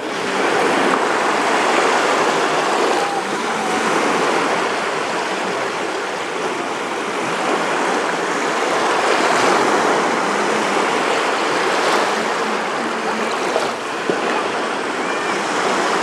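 Small sea waves breaking and washing up a shallow sandy shore right at the water's edge: a steady rush of surf that swells and eases every few seconds.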